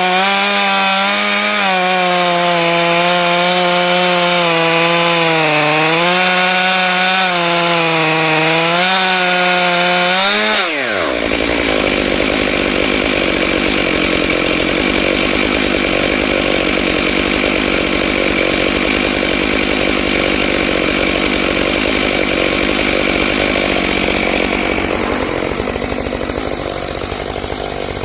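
Stihl MS661 two-stroke chainsaw on a chainsaw mill running at full throttle, its pitch wavering as the ripping chain cuts. About ten seconds in the revs fall away quickly and the saw settles into a steady idle.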